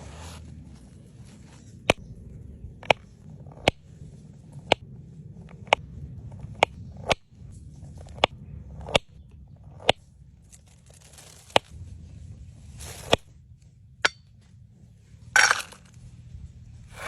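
Sharp clicks or taps, about one a second, over a faint low hum, with a short louder scrape or rustle near the end.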